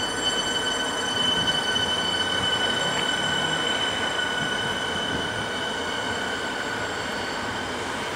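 Suburban electric train rolling away from the platform, with a steady high-pitched wheel squeal over the rolling noise. The sound is loudest soon after the start and slowly fades as the train draws away.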